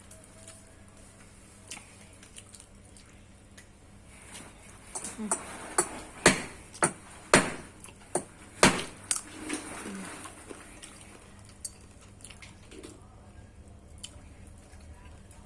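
Irregular sharp knocks and clicks, a burst of about ten between roughly four and ten seconds in, with only faint scattered ticks before and after.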